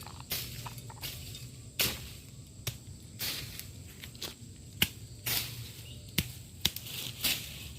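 Irregular rustling swishes and sharp clicks, about a dozen scattered through with no steady rhythm.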